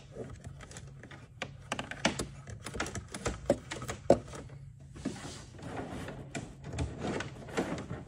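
Irregular clicks, taps and rustling as hands work a light wire through a drilled hole in a plastic kayak hull, the wire and fingers knocking against the hull.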